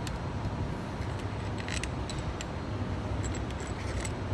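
Light metallic clinks and ticks, some single and a quick cluster nearly two seconds in, as the A/C compressor's long housing bolts and small parts are handled on the steel bench, over a steady low hum.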